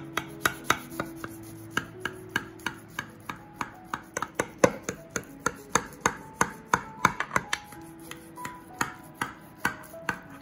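Kitchen knife cutting a baked potato-and-sardine bake in a ceramic baking dish: a quick, uneven run of sharp taps as the blade presses down through the bake onto the dish, about three a second.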